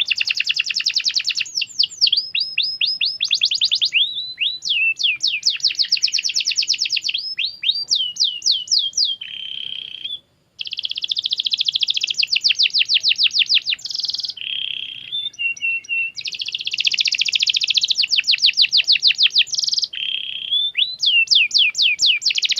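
Domestic canary singing a long, continuous song of fast trills and rapidly repeated high notes, changing from one phrase to the next every second or two, with a brief break about ten seconds in.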